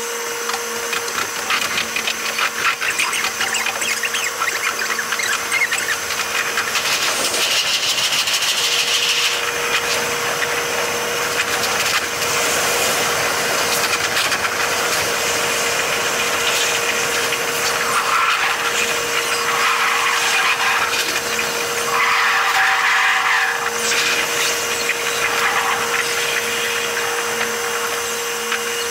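A train's running sound from the driver's cab, played back at eight times speed: a fast, dense buzzing chatter of wheel and rail noise with a steady whine underneath.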